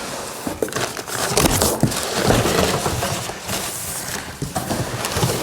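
Packaging being handled as a boxed grill is unpacked: continuous rustling and scraping with scattered knocks and clicks.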